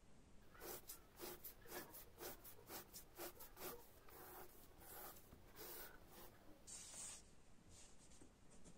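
Pen writing on a paper workbook page: a quiet run of short scratching strokes, about three a second, followed near the end by a longer scratch.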